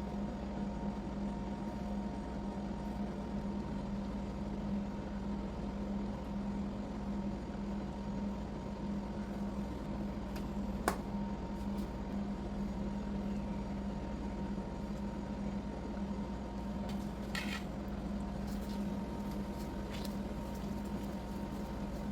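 Steady low hum of a running appliance or motor, with one sharp click about eleven seconds in and a few faint light taps later.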